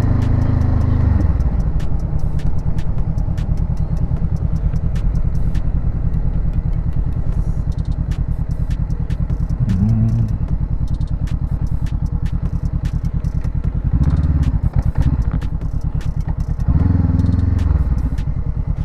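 Honda CBR500R motorcycle's parallel-twin engine running, its note shifting a few times: about a second in, and twice more near the end.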